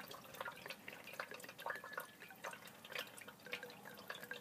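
Gasoline pouring into the fuel tank of a new 212cc small engine, trickling and dripping in irregular little splashes, with some spilling over.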